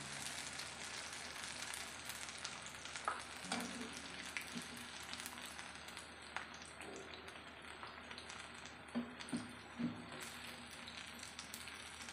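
Hot oil sizzling steadily as mushroom pakodas in chickpea-flour batter deep-fry, the hiss easing a little after halfway. A few sharp clicks of the wire-mesh skimmer against the pan come as the golden-brown fritters are lifted out.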